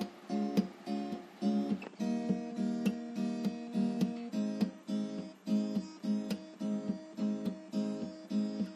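Background music: a strummed acoustic guitar playing in a steady, even rhythm.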